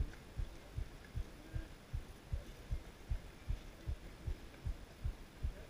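Steady bass-drum beat of distant amplified music: low thumps about two and a half a second, with little else of the music coming through.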